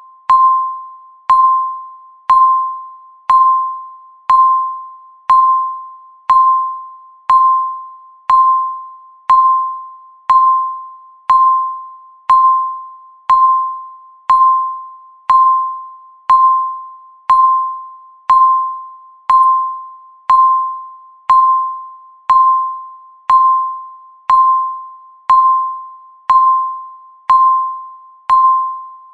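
Electronic countdown-timer beep sounding once every second, one mid-pitched tone per beep, each starting sharply and fading away before the next.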